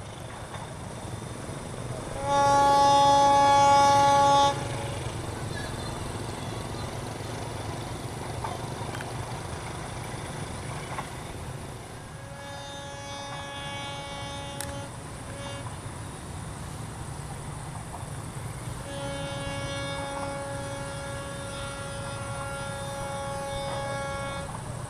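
Diesel locomotive horn sounding three times as the train pulls away: a loud blast of about two seconds, a fainter one of about three seconds, then a long one of about five seconds, over the low rumble of the departing train.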